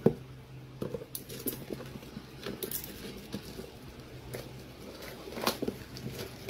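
Plastic parcel packaging crinkling and rustling as hands handle and pull at it, with scattered small taps and clicks.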